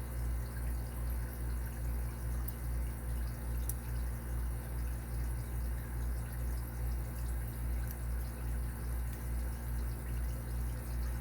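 A steady low hum with a slow pulse about twice a second, with a few faint metallic ticks as a shim is worked into a tight padlock.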